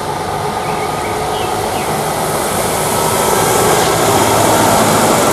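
MAN concrete mixer truck driving past on a street: steady engine and road noise that grows a little louder over the first few seconds.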